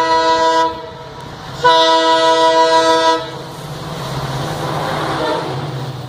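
WDP3A diesel locomotive's multi-tone horn: the end of one long blast, which stops well under a second in, then a second blast of about a second and a half. After that comes the noise of the train running past, rising and then easing off near the end.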